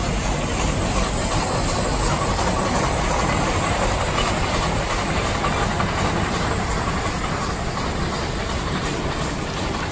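Train of cabooses rolling slowly past on the adjacent track, pushed by a Shay geared steam locomotive, over a steady hiss of steam.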